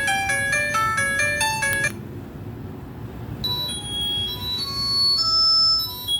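Q-Mobile ME114 phone ringtones playing: a quick electronic melody of short notes stops about two seconds in. After a pause of about a second and a half, the next ringtone starts, with sparser, higher notes.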